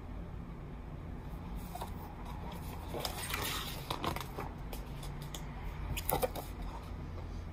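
Paper and book handling: rustling and scraping as a pink paper sheet and the picture-book pages are moved about and turned, in uneven spells from about two to four and a half seconds in and again briefly about six seconds in, over a steady low hum.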